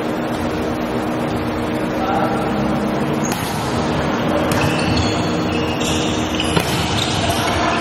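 Volleyball rally in a large indoor arena: sharp smacks of the ball being hit, the first about three seconds in and several more after it, with players calling out over a steady hum of the hall.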